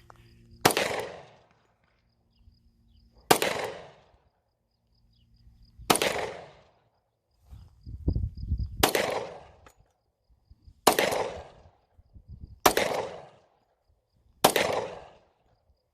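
Firearm shots fired singly at a slow, steady pace: seven sharp cracks about two seconds apart, each followed by a short echoing tail.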